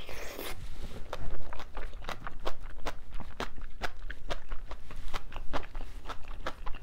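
Close-miked chewing of a mouthful of crunchy bean sprouts and rice in spicy sauce: a brief rush of noise as the bite goes in, then a fast, irregular run of sharp crisp crunches.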